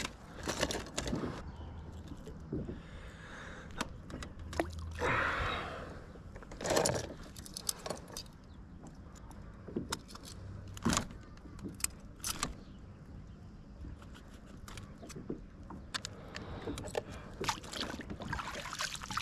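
Scattered clicks, knocks and rattles of fishing gear being handled in a plastic kayak while a small fish is unhooked in a rubber-mesh landing net and clipped into a lip gripper, with a couple of short rustles about five and seven seconds in.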